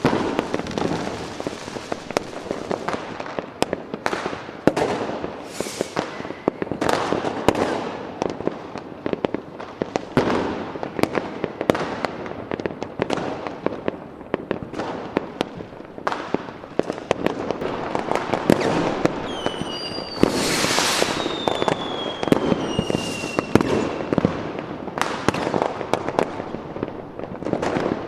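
Fireworks display: a dense, continuous run of bangs and crackling bursts. About two-thirds of the way through, several whistles fall in pitch over a hissing burst.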